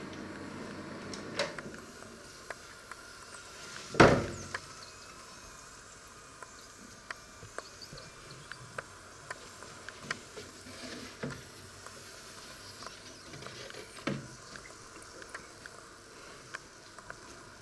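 Panasonic combination microwave oven: a steady fan hum stops about a second and a half in. A loud clunk follows about 4 s in as the oven door is opened. Then come scattered light clicks and two knocks as the metal grill tray of potato wedges is handled and taken out.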